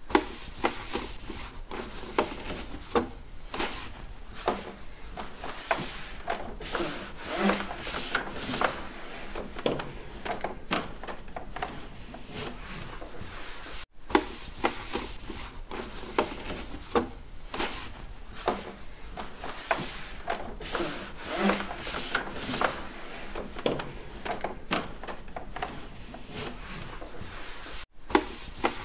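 Cloth rubbing and scrubbing over a hard surface in quick, irregular strokes. The same stretch of about 14 seconds plays twice, with a brief dropout between the two.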